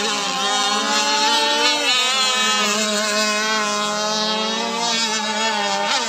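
Several engine-powered RC racing powerboats running at speed around the course, their high-pitched engines droning together with small shifts in pitch.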